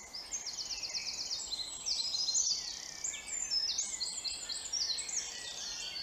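Several birds singing at once: a dense tangle of quick, high, overlapping phrases and rapid runs of repeated notes.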